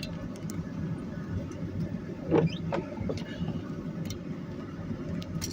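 A steady low vehicle rumble, with a short high squeak about halfway through.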